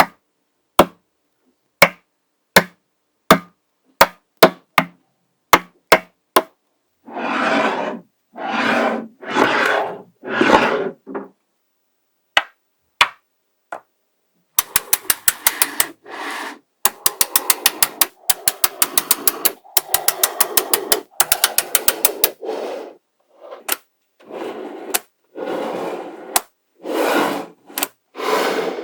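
Small magnetic balls snapping together with sharp single clicks, then rubbing and scraping against one another in stretches of about a second. In the middle come rapid runs of clicks as many balls snap into place in quick succession.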